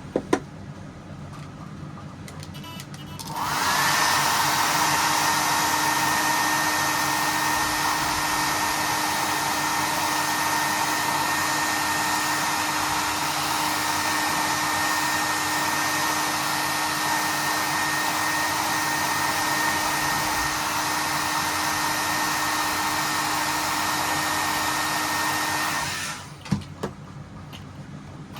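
A small electric blower motor, like a hair dryer or heat gun, switched on about three seconds in. It whines up to speed with a steady rush of air, runs evenly, and shuts off near the end.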